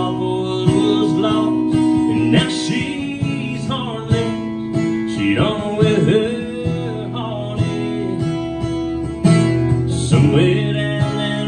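Acoustic guitar strummed in a steady rhythm, played live as accompaniment to a country song.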